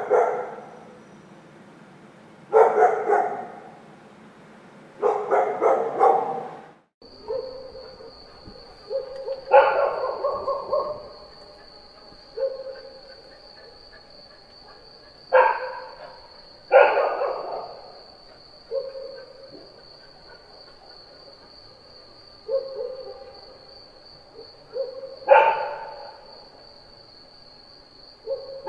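A dog barking in single barks and short bursts spaced a few seconds apart, some as short, lower woofs. About seven seconds in the recording changes, and from then on a steady high tone runs under the barks.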